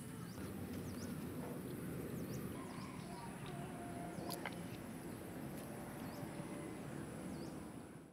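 Faint outdoor rural ambience: small birds chirping in short calls that fall in pitch, scattered through the whole stretch over a low, steady background hum.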